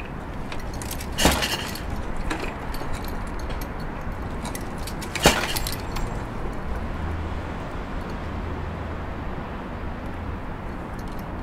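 Harley-Davidson Shovelhead V-twin being kicked over: two sharp metallic clanks from the kick-start, about four seconds apart, the second the louder, and the engine does not catch.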